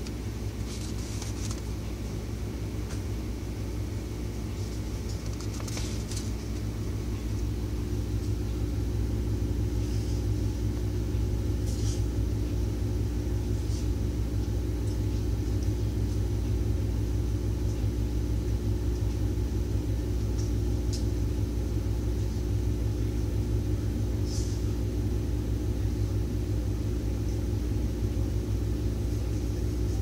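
Steady low rumble and hum of background noise that grows a little louder over the first several seconds and then holds, with a few faint, short rustling ticks from a paper booklet being handled.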